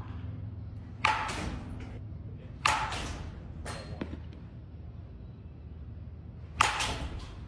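Sharp cracks of baseballs being struck at practice: three loud ones about a second, two and a half and six and a half seconds in, plus a fainter one, each with a short ringing tail, over a steady low rumble.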